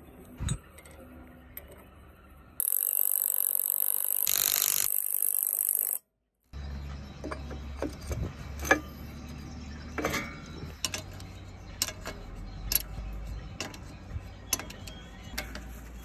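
Scattered metal clinks and knocks from hand work on a loader's bucket cylinder and pin linkage, over a low steady hum. A loud steady hiss runs for about three seconds near the start and then cuts off abruptly.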